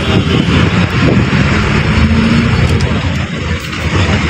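Engine and road noise of a moving bus, heard from inside the passenger cabin.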